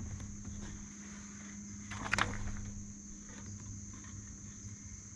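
Steady high-pitched insect chorus, with a few light clicks and knocks about two seconds in.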